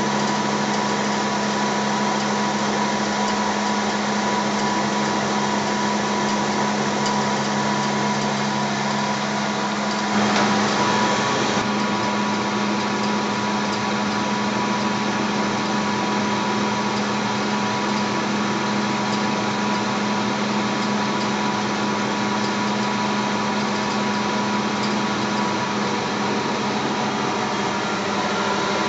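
Steady hum and whine of a small running electric motor, unchanging apart from a brief louder rustle about ten seconds in.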